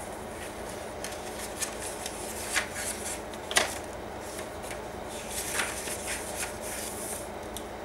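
Paper pages of a handmade junk journal being turned and handled: soft rustling and swishing with a few sharp crackles, the loudest about three and a half seconds in.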